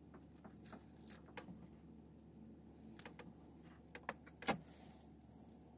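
Scattered light clicks, taps and rustles of electrical cable being handled, with one sharper knock about four and a half seconds in.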